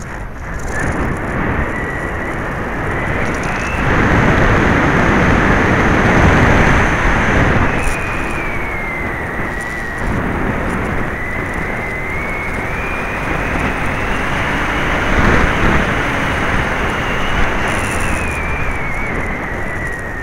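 Onboard sound of an FPV-Raptor 1600 electric model glider in flight: a steady whine from its electric motor and slightly unbalanced propeller, rising and falling in pitch several times, over a heavy rush of wind noise that gets louder between about four and seven seconds in.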